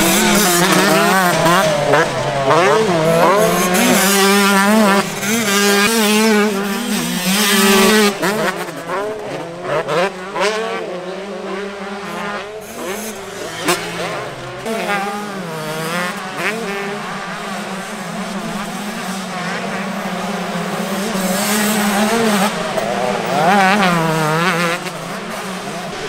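125 cc two-stroke motocross bikes revving hard, the engine pitch climbing and dropping again and again with throttle and gear changes. Loud and close in the first several seconds, then more distant and quieter, with a closer pass again near the end.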